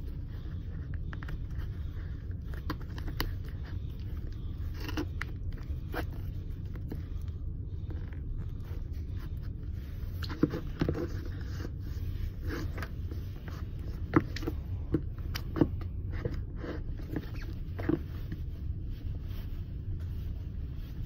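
Shoelaces being pulled and tied on a leather lace-up shoe: rustling and scattered short scrapes and clicks, with a few sharper taps in the second half, over a steady low hum.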